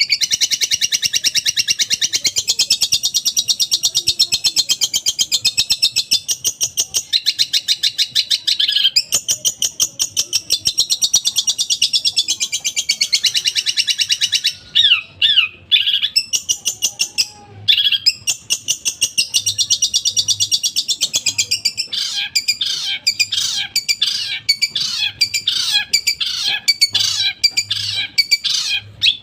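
Long-tailed shrike (cendet) singing a loud, rapid-fire chattering song of fast repeated high notes, broken by a few short pauses. In the last third it switches to quick downward-sweeping notes about twice a second. The song carries mimicked material, including sparrow calls.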